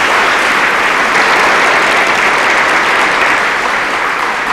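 A large audience applauding steadily, a dense clapping that fills the hall.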